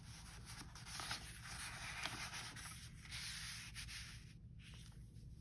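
Sheets of paper being handled, sliding and rubbing against each other and the work surface in a soft continuous rustle that dies down after about three and a half seconds.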